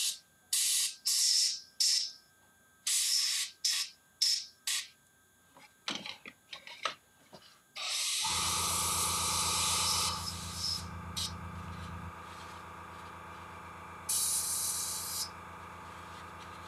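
Airbrush spraying paint in short hissing bursts, several in the first five seconds. About eight seconds in, a steady motor hum starts and keeps on, a longer two-second spray goes with it, and one more burst follows near the end.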